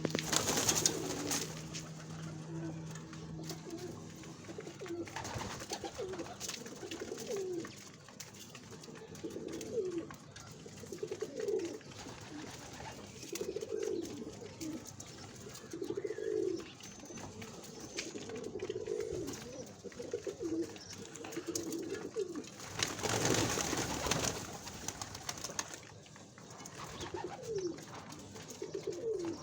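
Domestic pigeons cooing over and over, several low coos overlapping at times. About 23 seconds in comes a short, loud burst of rustling noise.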